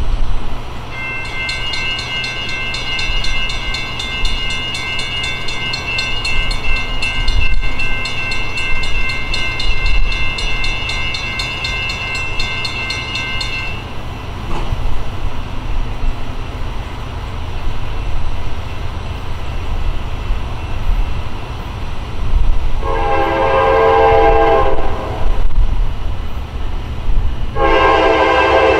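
An approaching Norfolk Southern freight train, its lead Dash 9-44CW diesel locomotive rumbling low, sounds its horn twice near the end: a long blast about three-quarters of the way through, then a second blast starting just before the end. For the first half, a high steady tone with several pitches sounds over the rumble.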